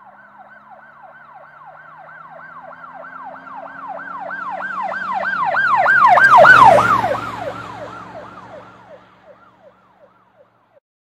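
Emergency vehicle siren in a fast yelping pattern, passing by. It grows louder to a peak about six and a half seconds in, then drops slightly in pitch and fades away.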